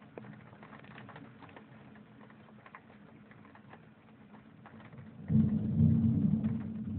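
Rain pattering with scattered drips, then about five seconds in a sudden loud rumble of thunder that slowly dies away.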